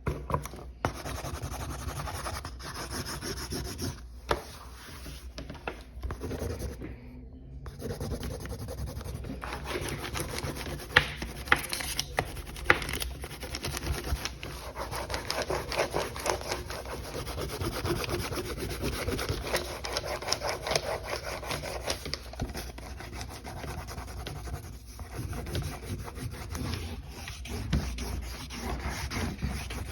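A coloring tool rubbing back and forth across a sign in continuous strokes, pausing briefly twice in the first quarter, with a few sharp ticks about a third of the way through.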